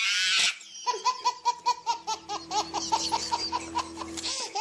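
Baby laughing hard: a high squeal at first, then a quick run of short, pitched laughs, about five a second.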